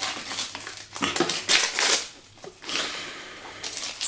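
Gift wrapping crinkling and rustling in several short, irregular bursts as a small package is unwrapped by hand.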